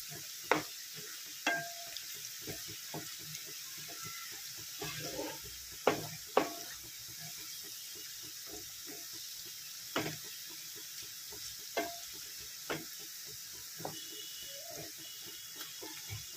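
Sliced onions frying in hot oil with a steady sizzle while a wooden spoon stirs them, giving irregular knocks and scrapes against the pan. The onions are being stirred continuously so they brown evenly without burning.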